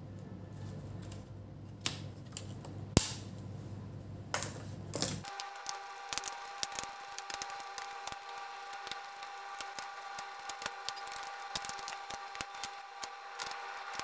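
Hand disassembly of a laptop: small clicks, ticks and rattles of plastic and metal parts and a screwdriver working the heat-sink screws, with one sharp click about three seconds in.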